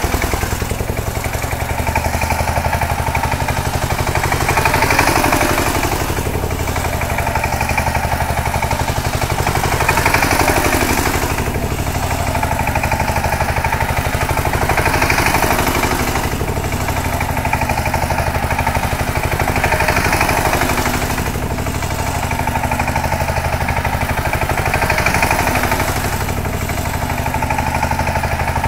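Single-cylinder diesel engine of a two-wheel power tiller running steadily with a rapid chugging beat as it is driven in circles over straw, growing louder and fainter about every five seconds.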